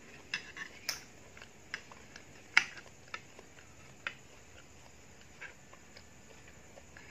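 Metal spoon clicking and scraping against a plastic plate while eating, a scattered run of sharp taps, the loudest about two and a half seconds in, growing sparse in the second half.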